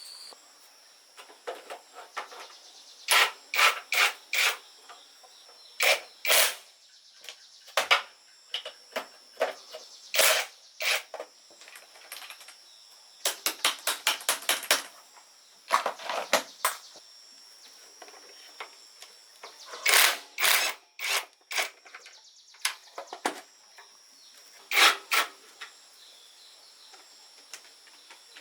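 Hand tools knocking and clinking on metal motorcycle parts in irregular clusters of sharp clicks, with a quick run of about ten clicks halfway through.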